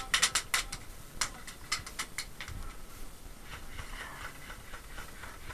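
Airsoft gunfire: a quick string of sharp cracks in the first half-second, then single cracks spaced out over the next two seconds or so, thinning toward the end.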